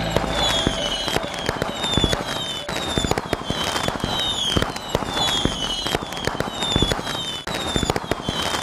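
Fireworks popping and crackling in rapid succession, with a short falling whistle that repeats about twice a second.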